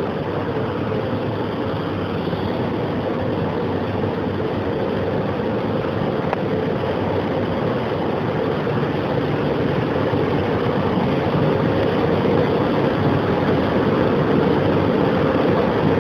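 Steady rushing noise with a low hum running under it, the ambience of an underground rail station, growing slightly louder near the end.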